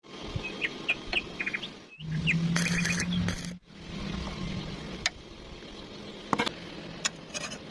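Small birds chirping. About two seconds in, a louder steady low hum with crackling comes in, then cuts off abruptly; scattered clicks follow.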